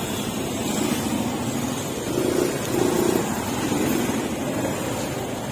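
Busy street ambience: a steady rumble of passing motor traffic mixed with the background noise of a market.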